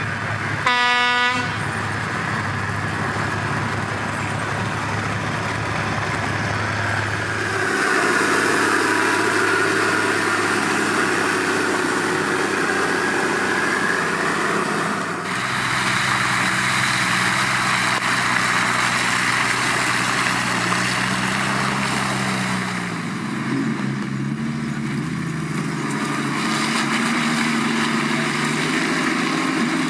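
A short horn toot about a second in, then off-road 4x4 engines running and working, the engine note changing abruptly several times.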